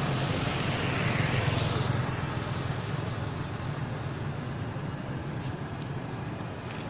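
A motor vehicle going by on the road, its sound fading away after about two seconds over a steady low rumble.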